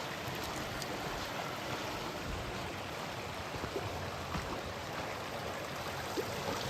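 Mountain stream running steadily over rocks, a continuous rushing of water, with a few light knocks over the top.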